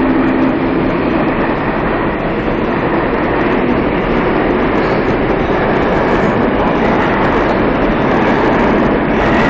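R142A subway train accelerating out of a station past the platform: a loud, steady rush and rumble of the cars on the rails. In the first second and a half a steady pitched tone sits over the noise, then fades.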